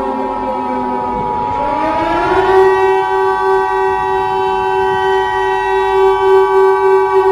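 Civil defense siren sinking low, then winding up in pitch about a second and a half in and holding steady at full pitch. Under it sounds a steady two-tone Emergency Alert System attention signal.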